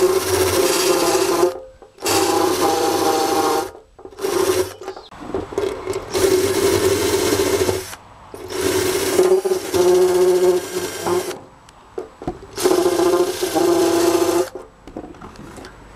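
Cordless drill spinning a wire-wheel brush against a steel motorcycle gas tank, scrubbing off paint and grime around a leaking crack to bare metal for soldering. The drill runs in about six spurts of one to three seconds, stopping and starting in between, with a steady motor hum under the rasp of the wires on the metal.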